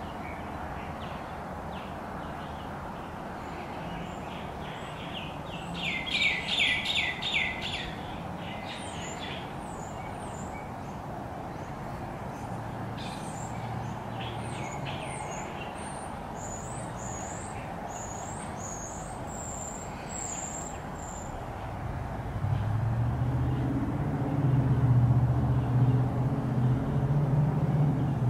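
Outdoor ambience with birds chirping: a quick run of repeated notes about six seconds in, then scattered high chirps through the middle, over a steady background hiss. Near the end a low rumble builds and becomes the loudest sound.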